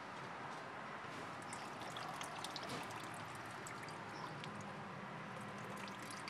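Faint water trickling and splashing in a toddler's plastic pirate ship water table, with scattered small splashes and ticks.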